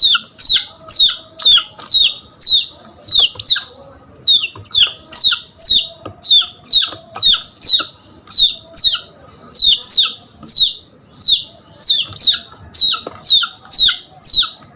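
Red junglefowl chick's distress peeps: loud, high calls that each fall in pitch, repeated nearly two a second in runs with brief breaks. It is a lost chick crying for its mother hen, the kind of call used to lure junglefowl.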